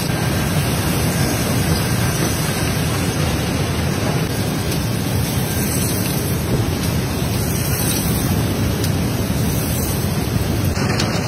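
Steady, dense clatter of broken glass cullet travelling on a running conveyor belt, with the factory machinery's noise underneath.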